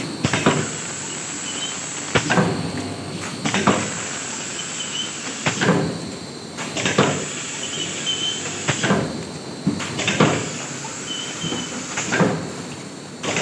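Vertical form-fill-seal pouch packing machine running, filling 500 g detergent powder pouches at about 18 a minute. Its sealing jaws knock shut in an even cycle of about three seconds, two knocks per cycle about a second apart, over a steady mechanical background.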